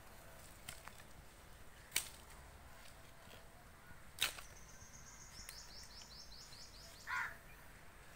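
Two sharp snaps as a small knife cuts thorny side shoots off a lemon branch, about two seconds and four seconds in. A bird then twitters a quick run of high, falling notes, about six a second, followed by a brief lower sound near the end.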